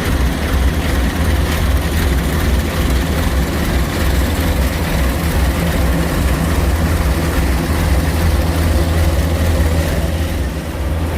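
Diesel engine of rice-harvesting machinery running steadily at a constant speed, a low, even hum.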